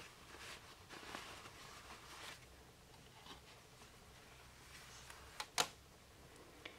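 Faint rustling of a cloth pouch and fabric ribbon being handled, mostly in the first couple of seconds. Two sharp clicks come close together about five and a half seconds in.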